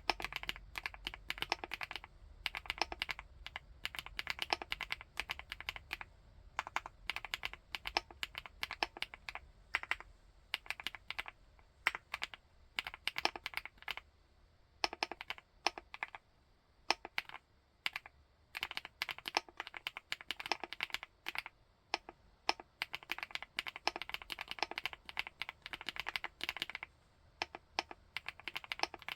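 Typing on a 75%-layout full-aluminium keyboard: fast runs of keystrokes in bursts of one to three seconds, broken by short pauses.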